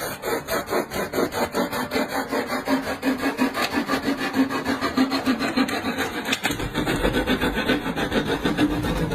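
Wood being sawn by hand with rapid, even back-and-forth strokes, about three a second, each stroke a rasping scrape.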